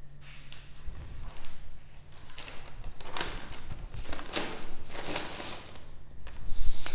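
Soft rustling and shuffling handling noises, with a few louder ones from about three to five seconds in, over a steady low hum.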